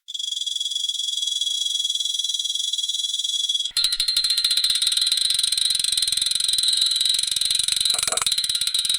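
Electronic alarm of a laminar flow cabinet: a steady high-pitched tone, which about three and a half seconds in switches abruptly to a rapid, buzzing pulsed tone.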